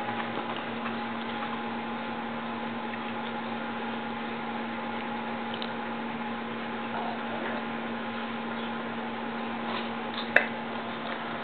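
Steady room hum and hiss; about ten seconds in, Jägermeister is poured from its bottle into a glass shot glass, with one sharp click of glass.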